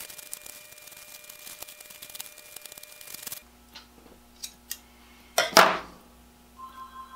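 Hands working at a bench: a rustling handling noise with small clicks, then light snips of scissors cutting masking tape and a louder clatter about five and a half seconds in as the steel scissors are set down. A pulsing music tone begins near the end.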